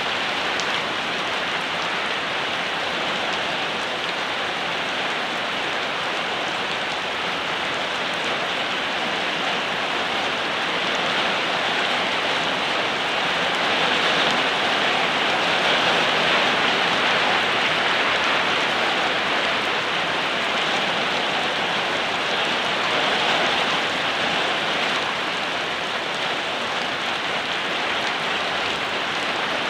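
Steady rain falling, an even hiss that swells slightly about halfway through.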